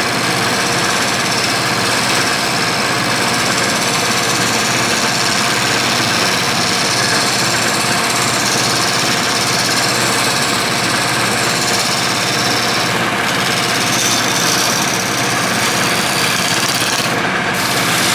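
Wood lathe running while a turning tool cuts a spinning burl bowl blank: a steady motor hum under a rough, hissing scrape of tool on wood. The high hiss briefly drops out near the end as the cutting pauses.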